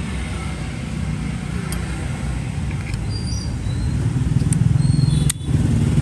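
Steady low engine rumble of a nearby road vehicle, growing louder about four seconds in, with a few short high chirps over it.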